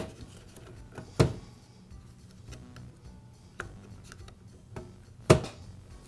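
Hard plastic clicks and knocks as a power saw's plastic handle housing and switch parts are handled and fitted together. There are four sharp knocks, the loudest about five seconds in, with smaller ticks between them.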